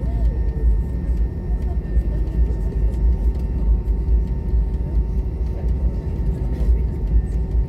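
Cabin noise inside an Airbus A320 taxiing on the ground: a steady deep rumble with the jet engines running at low power, carrying a faint, steady high whine.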